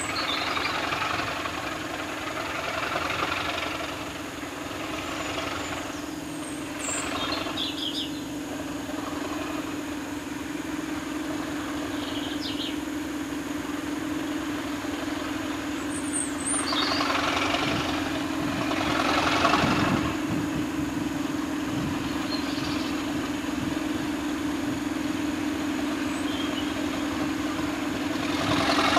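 Diesel locomotive engines running with a steady hum, swelling louder in surges as a locomotive moves slowly along the track, loudest about two-thirds of the way in. A few brief high squeaks come through.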